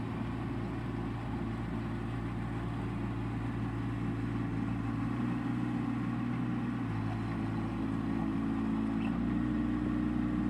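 Bobcat 418 mini excavator's small diesel engine running steadily as the machine travels on its rubber tracks over gravel.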